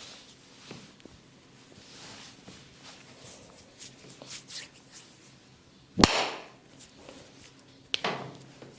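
Massage by a barber's hands: soft rubbing and pressing on skin, then two loud, sharp smacks about six seconds in and again two seconds later.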